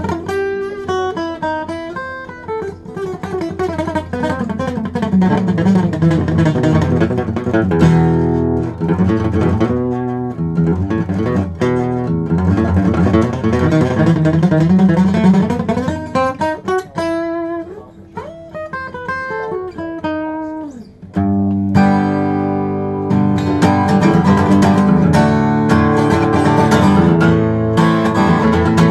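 Gibson SJ-200 Standard jumbo acoustic guitar played solo: picked melody and chords. About three quarters of the way through the playing drops quieter for a few seconds, then comes back suddenly louder and fuller.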